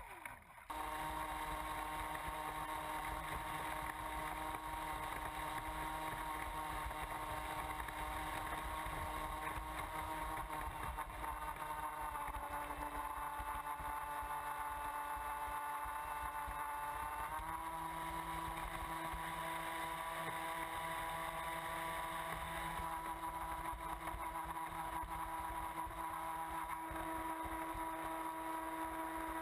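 Radio-controlled Miss Geico catamaran boat running at speed, heard from on board: a steady motor whine over the rush of water and spray. The whine dips slightly in pitch about eleven seconds in and steps up again about seventeen seconds in as the throttle changes.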